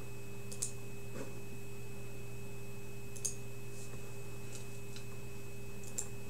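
Steady electrical hum with a few faint, sharp clicks, three of them clearest, spread a few seconds apart.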